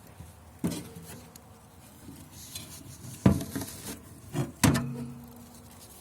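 A few sharp knocks and clanks of hard objects, the loudest a little past the middle and two more close together later, the last one leaving a short low ring.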